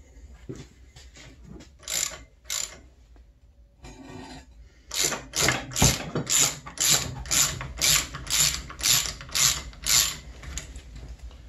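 Socket ratchet clicking as it turns the bolt in a snowmobile's primary clutch: a few separate strokes, then from about five seconds in a quick steady run of strokes, about two a second.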